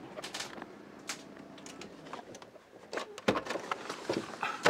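Scattered clicks and knocks inside a parked car's cabin, growing busier over the last second and a half, with the loudest knock about three seconds in.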